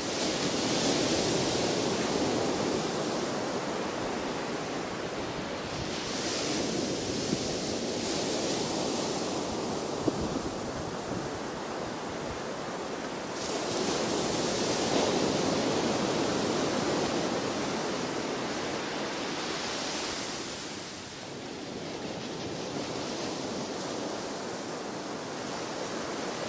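Small waves breaking and washing up a sandy beach: a steady rushing that swells and eases every six or seven seconds as each wave comes in.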